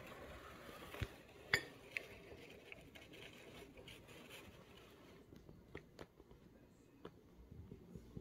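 A low hiss of room tone with a few faint sharp clicks and taps: three close together about a second in, and a few lighter ones later.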